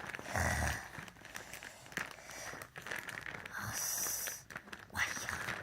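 Plastic packaging rustling and crinkling as it is handled and pulled open, with a louder hissing rustle about four seconds in.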